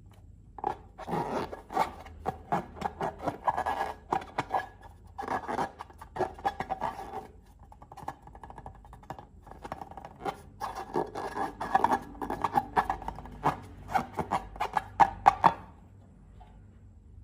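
Slime being squished and worked by hand: three bursts of dense crackling and clicking, with short pauses between them.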